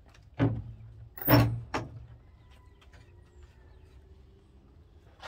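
Three short thuds within about a second and a half, the second one the loudest, then only a faint background.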